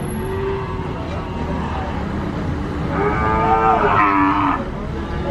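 Cattle mooing: a fainter, lower moo near the start, then one loud, long moo about three seconds in, over a steady low rumble.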